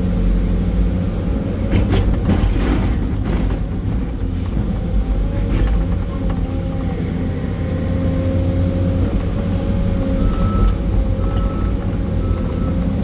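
Sany 385 excavator's diesel engine running steadily under digging load, heard from inside the cab, with hydraulics working. A few knocks and scrapes of the bucket in soil and stone come in the first several seconds, and a faint repeating high tone sounds near the end.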